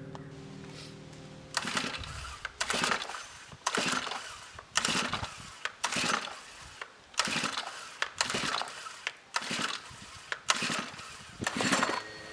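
Recoil starter of a gas-powered Stihl string trimmer being yanked about ten times, roughly once a second. Each pull is a short burst of cord-and-engine noise as the engine turns over without catching. Music fades out in the first second or two.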